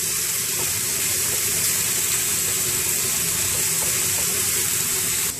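Diced chicken breast frying in hot oil in a nonstick pan over medium heat, a steady sizzling hiss as it browns, while a wooden spoon stirs it. The sizzle eases a little just before the end.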